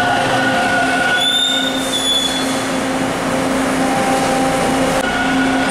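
TTC T-1 subway train running along the station platform, a steady rumble of wheels on rail with a motor hum. A brief high-pitched squeal comes in about a second in.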